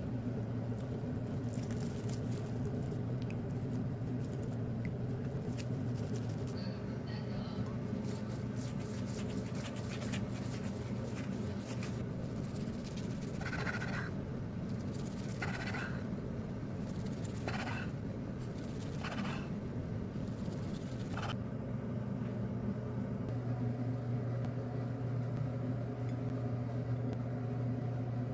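Steady low hum of a running kitchen appliance, with a handful of short scraping or clinking sounds about halfway through.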